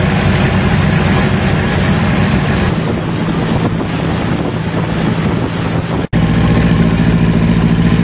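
Boat engine running under way, with a noisy hiss of wind and water over it. About six seconds in the sound cuts out for an instant and comes back as a steadier, clearer engine hum.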